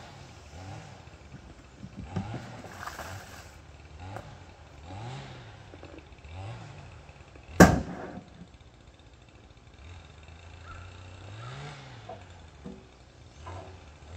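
Plastic wash tub being handled and set down on a wheeled cart, with light clattering and one sharp knock about halfway through. A faint low hum rises and falls over and over underneath.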